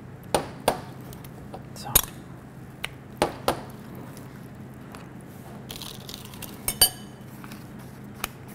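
Spoon clinking and tapping against a small oven-proof baking dish as a portion lasagne is topped, a scattered series of sharp clinks, with a steady low hum underneath.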